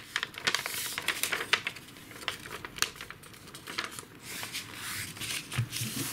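A sheet of paper being folded, creased and flattened by hand, with a steady scatter of crisp crackles and rustles.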